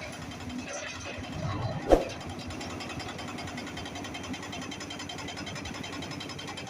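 Diesel engine of heavy construction machinery running steadily, with one sharp bang about two seconds in.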